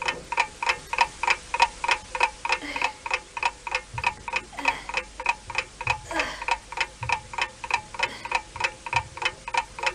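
Clock ticking fast and evenly, about four ticks a second, as a time-passing sound effect.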